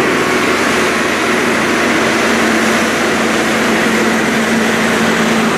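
Heavy haulage truck's diesel engine droning steadily under load, with tyre rumble from its many axles as it passes slowly with an oversize low-loader.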